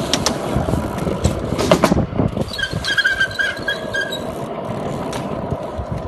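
BMX bike rolling and being manoeuvred on a smooth paved skatepark deck: tyre noise on the pavement, with a few sharp knocks from the bike in the first two seconds and a short run of high squeaks around the middle.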